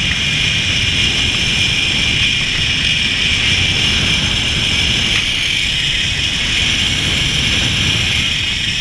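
Rush of wind over the microphone with a steady high whine from the zip-line trolley's pulleys running fast along the steel cable.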